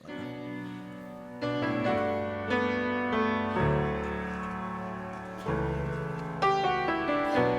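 Instrumental introduction played on piano: sustained chords over low bass notes, with a new chord struck about every second and each one slowly dying away.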